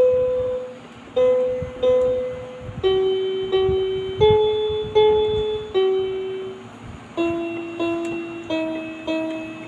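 Educational toy car's electronic speaker playing a simple melody one note at a time, about one note every two-thirds of a second, each note starting sharply and fading.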